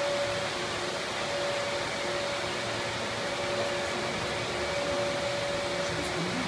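Cooling fans of supercomputer racks running with a steady, dense whoosh and a faint constant hum, while the system's control node initialises the hardware.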